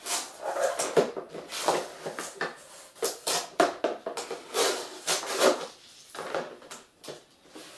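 Hands peeling a strap off a GoPro retail box and handling its clear plastic case: a run of scratchy rustles, scrapes and clicks, dying down near the end.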